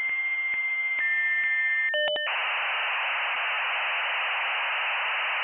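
Thin, tinny radio-style static hiss of a broadcast signal being interfered with. A steady high tone sits over the hiss and steps down in pitch about a second in. About two seconds in, a brief two-tone blip with clicks is followed by louder static alone.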